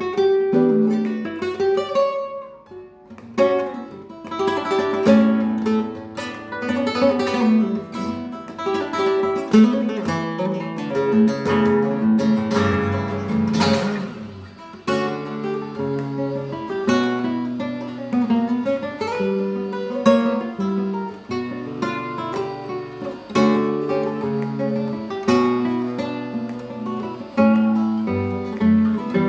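Solo Spanish nylon-string guitar, built with an air chamber in its body, played with picked runs and strummed chords in flamenco style. The playing pauses briefly about two seconds in, and a dense strum comes about thirteen seconds in.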